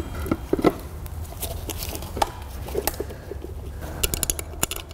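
Scattered light metal knocks and clicks as a dual-mass flywheel is seated on the crankshaft flange and its bolts are started by hand, with a quick cluster of clicks about four seconds in.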